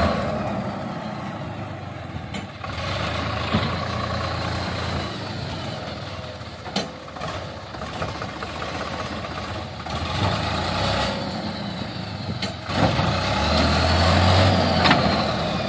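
Sonalika tractor's diesel engine running as it pulls forward while its tipping trailer, bed raised, unloads soil. The engine note swells and eases, loudest near the end, with a couple of sharp knocks partway through.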